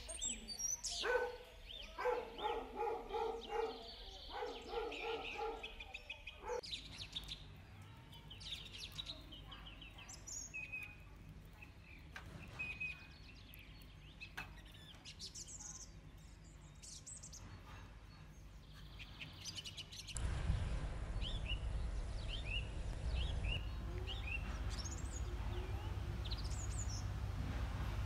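Birds chirping and calling, with short high chirps and trills throughout. A run of repeated lower calls comes in the first six seconds, and a louder steady background hiss comes in about two-thirds of the way through.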